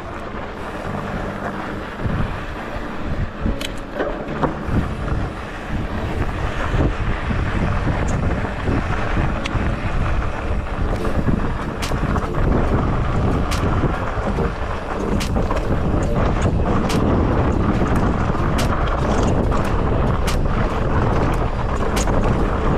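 Wind buffeting the microphone over a steady rumble that grows louder, with scattered sharp clicks and rattles.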